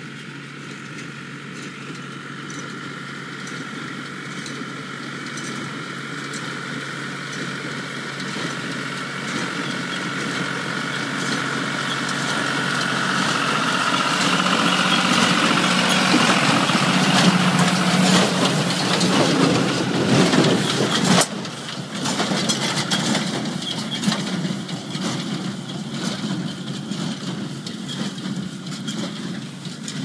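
John Deere 5320 tractor's diesel engine running steadily while it pulls a Ford 530 square baler that is picking up and packing hay, with knocking from the baler's mechanism. It grows louder as the rig comes close and passes, then drops off abruptly and carries on lower as it moves away.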